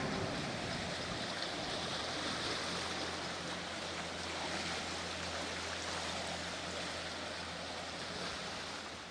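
River water lapping, with the faint steady hum of a passing passenger cruise boat's engine. The boat's wake washes against the wooden landing stage.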